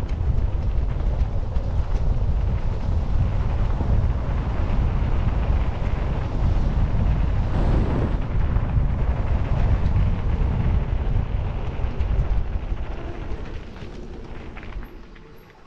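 Wind buffeting the camera microphone as a mountain bike rides down a rough, rocky trail, with the bike rattling over the ground. The noise dies down over the last few seconds.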